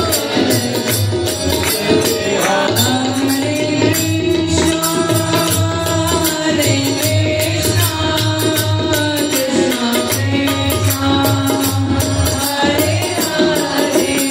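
Devotional bhajan: a man singing long held notes that slide in pitch, over a steady beat of drum and jingling percussion.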